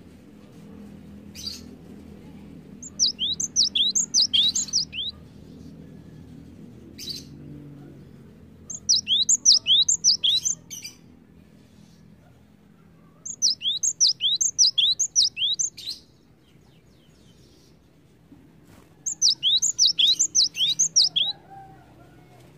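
Cinereous tit singing: four bouts of quick, high whistled notes, each about two seconds long and several seconds apart, every note a sharp slide in pitch, with a couple of single sharp notes between the first bouts.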